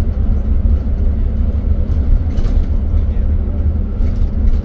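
Steady low road rumble and noise of a moving vehicle, heard from on board.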